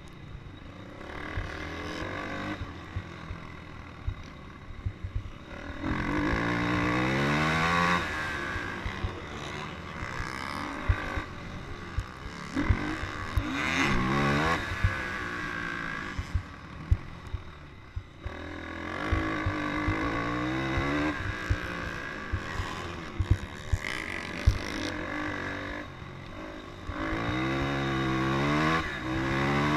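Racing ATV engine accelerating hard four times, its pitch climbing in steps through the gear changes, and easing off between. Sharp knocks and clatter come throughout from the rough dirt track.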